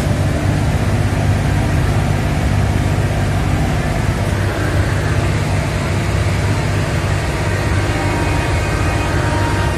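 Steady low hum and rumble of a locomotive, heard from inside its cab.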